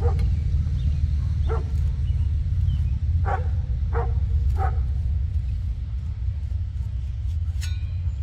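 A dog barking five short times, the last three in quick succession, over a steady low rumble. A single sharp click comes near the end.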